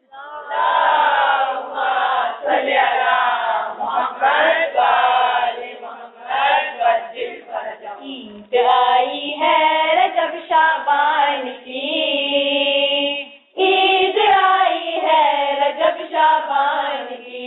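Voices singing an Urdu devotional song (manqabat) in chorus, unaccompanied, with long held notes and a short break about thirteen seconds in.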